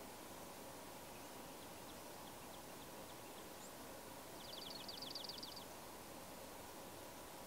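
A small songbird's rapid trill of about a dozen short falling notes, lasting just over a second, about four and a half seconds in, over faint steady outdoor background hiss.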